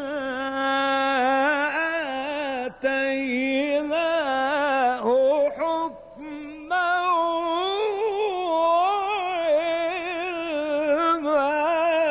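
A man's voice in mujawwad-style Qur'an recitation, drawing out a long melismatic line with wavering, ornamented pitch. It breaks off briefly about three seconds in and again around six seconds in, then carries on.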